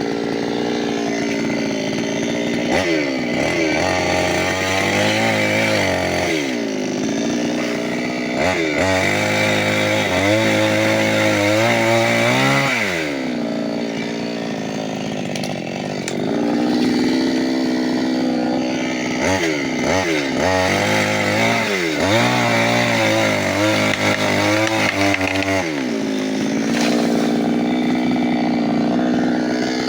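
New West 598X two-stroke gasoline chainsaw running at work, its engine speed rising and falling again and again in two long spells, with steadier running between them.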